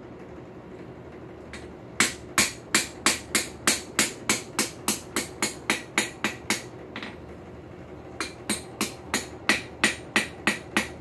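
Two-pound ball-peen hammer striking hot high-carbon steel on an anvil, forging a square punch: a run of quick, sharp blows about three a second starting about two seconds in, a pause of about a second and a half, then a second run.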